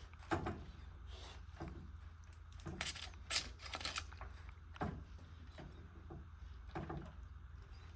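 Scattered light knocks, clicks and brief scrapes of hands and tools working on a plumbing fitting.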